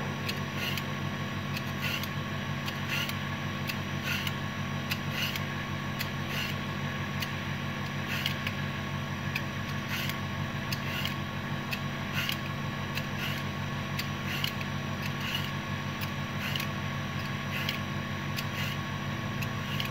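A vegetable peeler shaving a carrot into long thin strips: short scraping strokes a little under twice a second, over a steady low hum.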